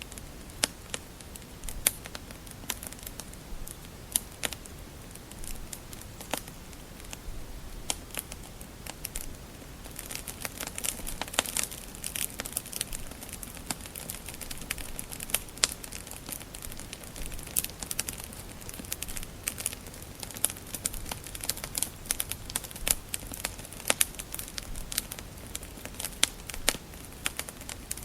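Wood fire burning in a fireplace: irregular sharp crackles and pops over a low steady hiss, the crackling growing busier after about ten seconds.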